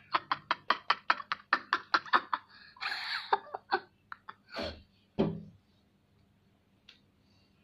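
A fast run of sharp clicks, about five a second for over two seconds, then a short hiss, a few more clicks and two dull thuds.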